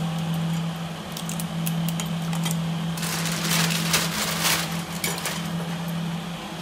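Crab shells clicking and cracking as the claws are snapped off by hand. About three seconds in comes a second or two of water splashing in a steel bowl as the crab goes into the water. A steady low hum runs underneath.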